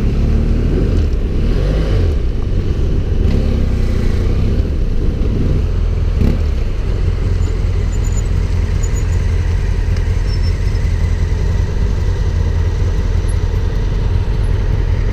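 Adventure motorcycle engine running while riding, its pitch rising and falling a few times in the first six seconds as the throttle changes, then holding steady.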